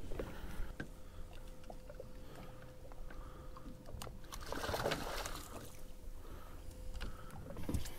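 Water sloshing against a boat's hull, with a brief splash about halfway through. A faint steady tone hums underneath.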